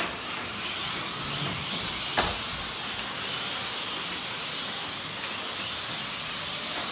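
Slot cars lapping the track: a steady high-pitched hiss of their small electric motors and pickups, with one sharp click about two seconds in.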